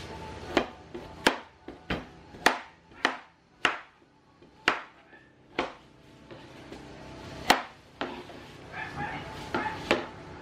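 Cleaver chopping a carrot on a wooden cutting board: a dozen or so sharp knocks at an uneven pace, about one every half second to second.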